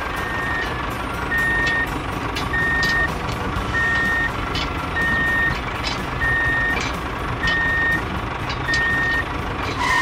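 Vehicle reversing alarm beeping steadily, one short single-pitch beep about every 1.2 seconds, over a steady engine rumble: the signal of a vehicle backing up.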